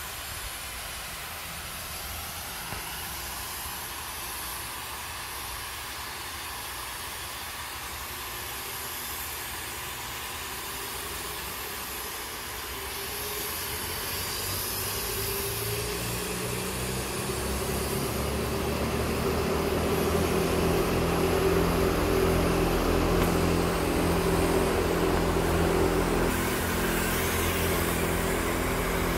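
Steady hiss, joined about halfway through by a low machine hum that grows louder and holds to the end.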